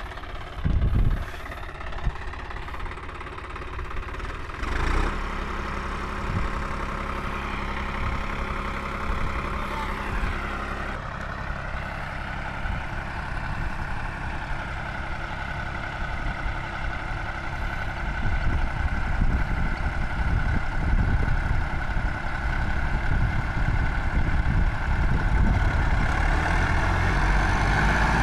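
Diesel tractor engines working under load as a John Deere 5210 tows a New Holland 7500, stuck in mud with a disc harrow attached. The engine note rises about ten seconds in, and the sound grows louder through the second half.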